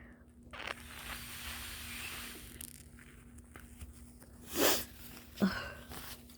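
Congested nose-blowing and coughing: a long hissing blow, then two short, loud, forceful bursts about a second apart.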